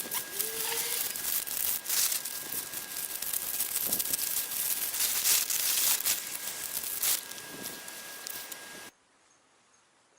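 Car cover fabric rustling and crinkling as it is handled, stopping abruptly about nine seconds in.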